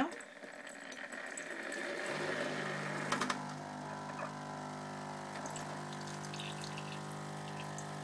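Bosch Tassimo pod coffee machine brewing: a watery hiss, then about two seconds in its pump starts a steady hum that runs on, with a brief click a second later.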